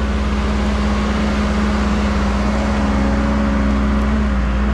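Bulldozer's diesel engine running steadily: a constant low drone with a steady hum.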